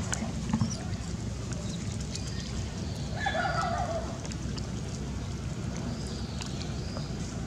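Outdoor ambience: a steady low rumble with a few faint clicks, and one short call a little after three seconds in.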